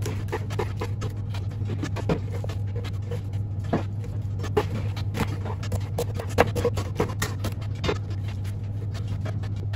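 Chef's knife chopping pointed cabbage on a bamboo cutting board: irregular sharp knocks of the blade through the crisp leaves onto the wood, over a steady low hum.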